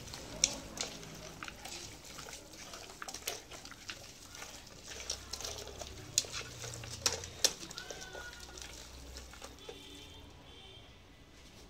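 Hands squishing and kneading raw mutton pieces with ginger-garlic paste and spices in an aluminium pressure cooker, a wet squelching with several sharp knocks of meat against the pot wall.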